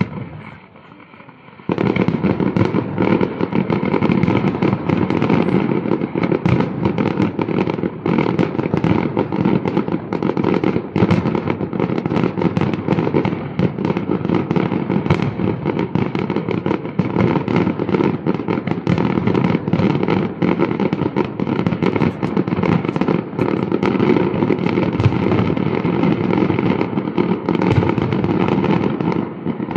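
Fireworks display: a single bang right at the start, then from about two seconds in a dense, continuous barrage of rapid bangs and crackles from bursting aerial shells that does not let up.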